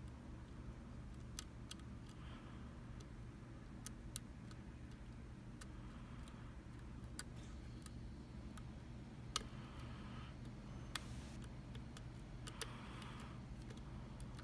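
Scattered light metallic clicks and ticks, about a dozen at irregular intervals, as a lock pick works the pins of a Mul-T-Lock MT5 pin-tumbler lock under tension. A low steady hum runs underneath.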